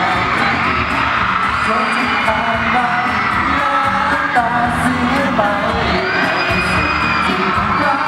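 A man singing a Thai pop ballad live into a handheld microphone over backing music, with no pause.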